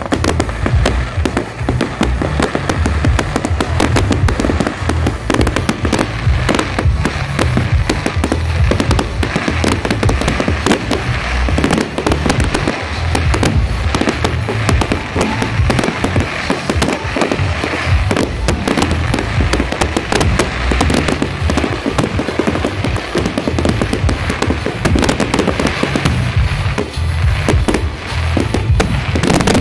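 Fireworks going off in a dense, continuous barrage of rapid bangs and crackles, with music playing alongside.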